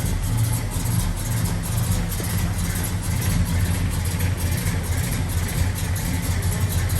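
Small-block Chevrolet 350 V8 running steadily at idle, a deep even rumble with no revving.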